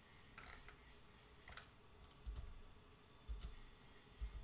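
Faint clicking of a computer mouse as web pages are opened and scrolled, with a few soft low thumps about once a second in the second half.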